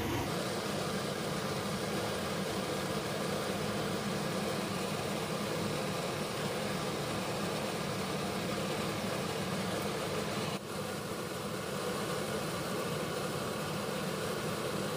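Steady kitchen background hum and hiss with no distinct events, dipping briefly about ten and a half seconds in.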